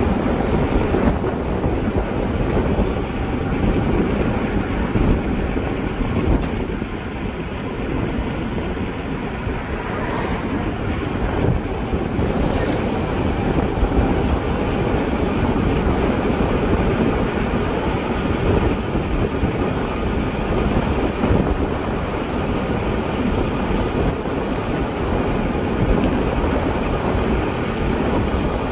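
Steady low rumble of wind buffeting the microphone and tyres rolling on asphalt as an e-bike rides along at a steady speed.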